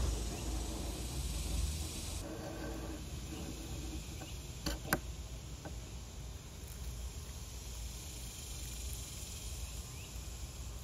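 Beading plane cutting a groove along a wooden post: one shaving stroke lasting about two seconds at the start, then two sharp knocks of tool or wood close together a little before halfway.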